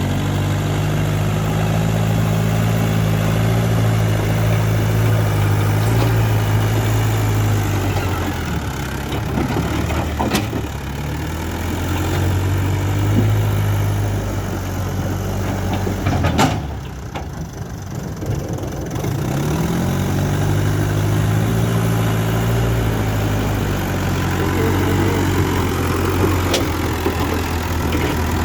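Backhoe's diesel engine running, its speed dropping and picking back up several times as it works. A sharp click about sixteen seconds in is followed by a brief dip in level.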